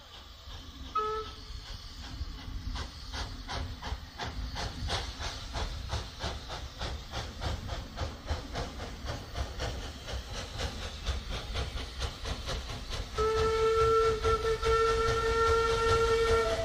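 Steam locomotive approaching under power, its exhaust beats coming evenly and growing louder. A short whistle pip sounds about a second in, and a long, loud steam whistle blast with several tones starts near the end.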